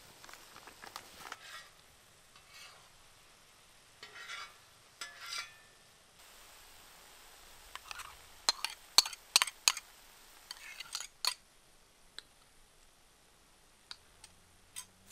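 Sliced porcini mushrooms and onion sizzling faintly on a steel disc pan over a wood fire, with short bursts of stirring and scraping. In the middle comes a run of sharp clinks of utensils against the pan and bowl as sour cream is added, and after that only a few single ticks.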